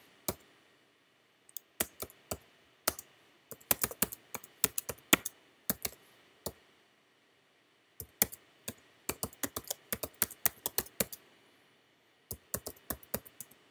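Typing on a computer keyboard: quick runs of key clicks, with pauses of a second or so between the runs.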